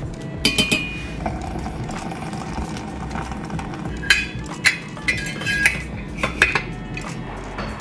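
Metal measuring scoop and stainless steel French press clinking: a couple of sharp metallic clinks with brief ringing about half a second in, then a cluster of clinks and taps from about four to six and a half seconds in as the plunger lid is set onto the press.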